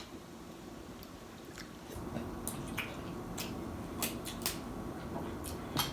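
Close-up eating sounds: scattered wet clicks and smacks of chewing snow crab. A low steady hum comes in about two seconds in.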